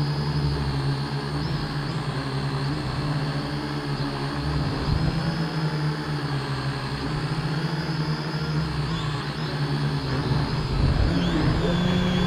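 A multirotor drone's electric motors and propellers whir steadily in low flight, heard from the camera mounted on its frame. The pitch and level rise a little near the end.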